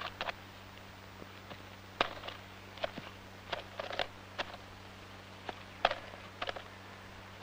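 Eurasian nuthatch pecking and hammering at bark and moss, a dozen or so sharp, irregular taps, over a low steady hum.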